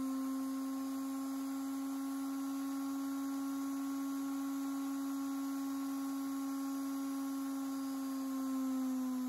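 Washing machine universal motor running at low speed on an SCR triac speed controller: a steady whine with overtones, its pitch starting to sag right at the end as the motor begins to slow.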